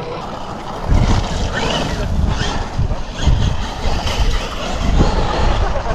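Wind buffeting the microphone in heavy gusts, starting about a second in, over the faint rising and falling whine of a radio-controlled car's electric motor.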